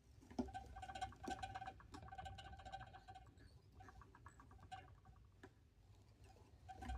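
Tying thread being wrapped onto a jig hook held in a vise, making a faint, fast-ticking buzz in several bursts as the thread pulls off the bobbin.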